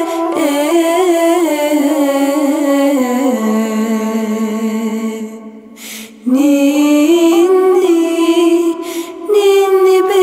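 A woman singing a slow Turkish lullaby in long, drawn-out notes with a wavering pitch; the voice drops away briefly about six seconds in and then comes back.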